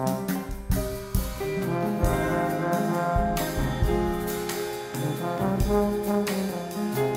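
Live instrumental band music, with a tuba prominent over accordion, electric guitar, keyboard, drum kit and congas.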